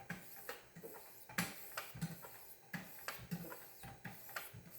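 3000-grit sharpening stone on a Wicked Edge guided sharpener, stroked fast up and down the knife's bevel: faint scraping with a click at each stroke, about three a second.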